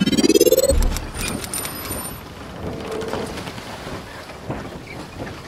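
Intro logo sound effects: a rising whoosh that ends in a low boom under a second in, then a brief sparkle of high chiming tones, followed by a softer steady rushing noise with scattered light clicks.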